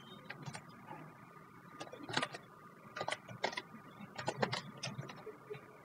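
Computer keyboard being typed on: a scattered run of faint, sharp keystroke clicks at an uneven pace, over a faint steady tone.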